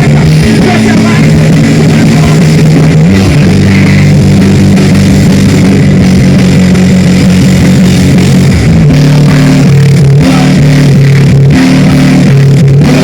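Live punk/metal band playing very loud, with distorted electric guitars and bass holding low notes that change every second or so through a riff. The recording is pinned at full volume and overloaded throughout.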